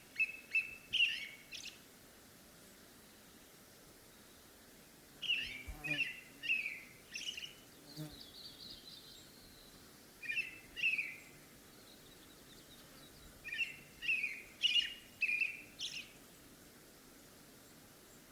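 A songbird singing short phrases of several clear, quick notes, repeated four times with pauses of a few seconds between them. A fainter buzzy trill comes once, about a third of the way in.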